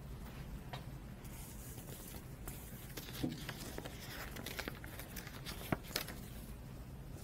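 Faint rustling of paper with scattered light clicks and taps, a couple of sharper clicks near the end, over a low steady room hum.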